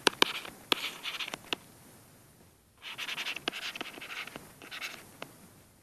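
A stylus writing on a pen tablet. First come a few sharp taps and clicks, then a short pause, then about three seconds of quick scratchy handwriting strokes.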